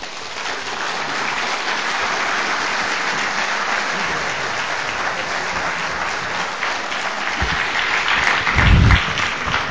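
Audience applauding, a steady clapping from the whole hall, with a couple of low thumps near the end.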